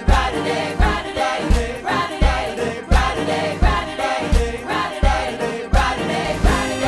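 Gospel choir singing in harmony with a live band of drums, guitar and piano, the kick drum keeping a steady beat.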